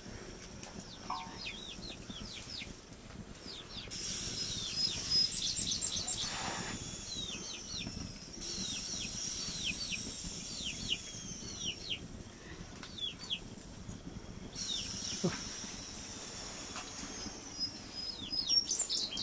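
Birds chirping: many short, quickly falling chirps, repeated irregularly, with a thin high whistle-like tone drawn out above them at times.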